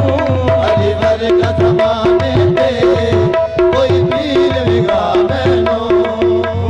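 Qawwali music: tabla playing a fast pattern, its bass drum bending in pitch, under a harmonium holding one note and pulsing another, with a sung line bending over them at times.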